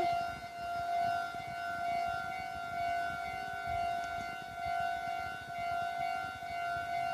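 Railway level-crossing warning alarm sounding: a steady, pitched electronic tone with a ringing edge, held without a break and swelling gently about once a second.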